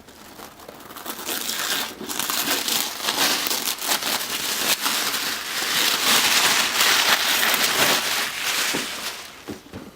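Packaging being torn and crinkled by hand as a large box is opened, a continuous crackly rustle that grows louder through the middle and dies down near the end.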